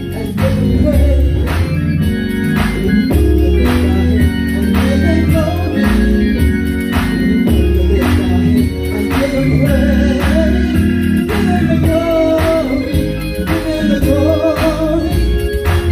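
Gospel worship music: organ chords and bass over a steady beat, with a woman's voice singing into a microphone through the sound system.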